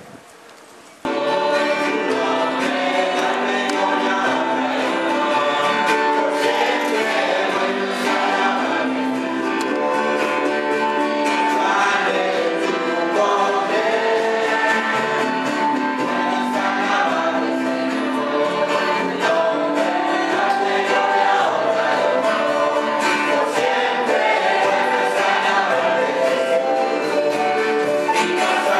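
A church congregation singing a worship song together with guitar accompaniment. It starts suddenly about a second in, after a moment of wind noise on the microphone.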